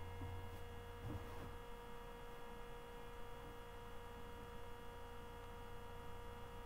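Steady electrical hum with a faint constant whine above it: background room tone, nothing else clearly heard.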